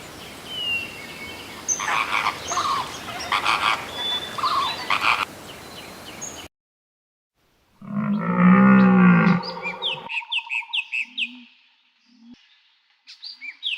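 Frogs croaking in repeated short calls over a background of chirping birds; after a sudden cut to silence, a second clip brings a loud, low, drawn-out animal call followed by a quick run of short pulses and a few high chirps.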